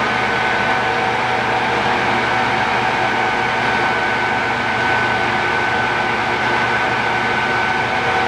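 Standard Modern 16-60 engine lathe running steadily under power, its geared headstock giving a constant mechanical hum with two steady whining tones.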